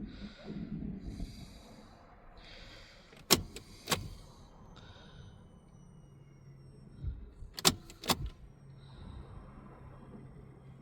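Two pairs of sharp clicks as the ignition is switched on and off, each followed by the low steady hum of the Vauxhall Insignia's new in-tank electric fuel pump running to push air out of the diesel fuel lines. The first hum cuts off suddenly, then starts again after the second pair of clicks.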